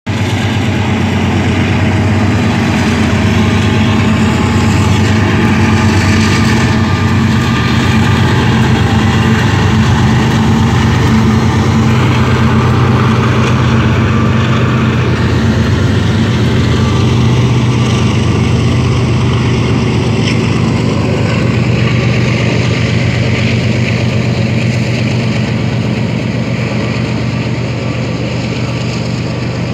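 Diesel freight locomotives passing, a steady low engine drone over a haze of rolling noise, easing slightly near the end as the boxcars follow.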